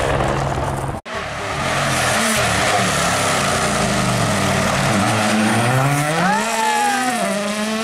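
A helicopter's steady drone for about a second, then a Toyota GR Yaris Rally1 car's turbocharged four-cylinder engine. Its note sags, then climbs steeply as the car accelerates along the stage, and dips briefly before holding steady near the end.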